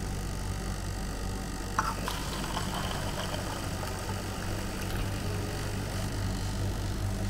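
Soft-drink dispenser running with a steady hum while cola pours into a paper cup, with a brief click about two seconds in.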